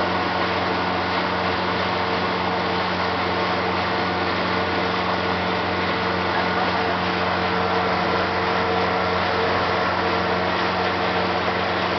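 Pontoon boat's outboard motor running steadily under way, a constant drone over a hiss of wind and rushing water.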